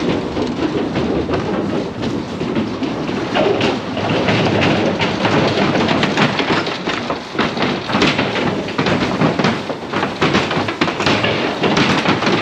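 Cattle hooves clattering and knocking on the floor of a livestock trailer as the animals are driven aboard, a dense, irregular run of knocks.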